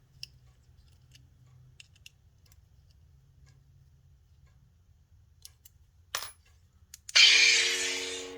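Faint metallic clicks and taps of a lightsaber hilt and its screws being handled. About seven seconds in, the saber's Proffie sound board plays through its speaker: a sudden loud hiss that fades, with a steady low hum underneath.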